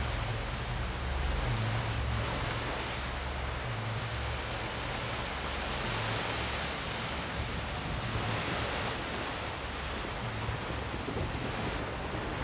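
Heavy, steady rain falling on pavement, with a low, uneven rumble underneath.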